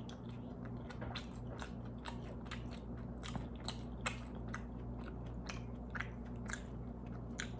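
Close-miked chewing of a mouthful of cauliflower-crust pizza with bell peppers: a steady run of small wet clicks and crunches, over a steady low hum.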